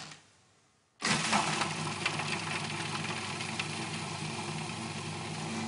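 Electric food processor starting about a second in and running steadily, its blade chopping spring onions and a clove of garlic.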